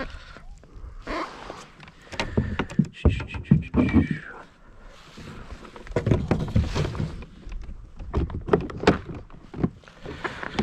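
Scattered knocks and thunks on a kayak as a landing net, fishing rod and a freshly caught speckled trout are handled, coming in several clusters with short pauses between.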